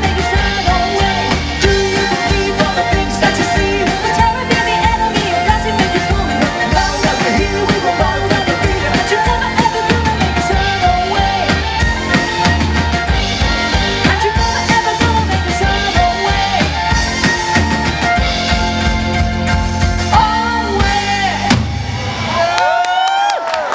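Live band playing a rock-leaning song with a singer and drums; the music ends about three-quarters of the way through the last few seconds, followed by a few short whoops.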